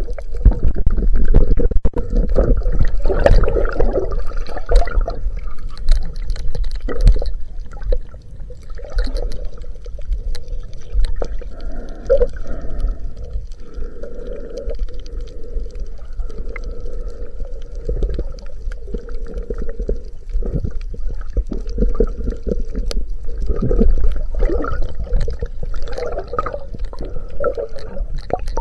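Muffled rush and slosh of water around a chest-mounted camera underwater during snorkeling, over a steady low rumble, with scattered small clicks.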